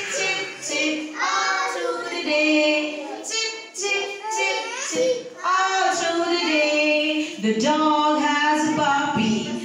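A woman singing into a microphone with young children singing along: a nursery song about animals and their young.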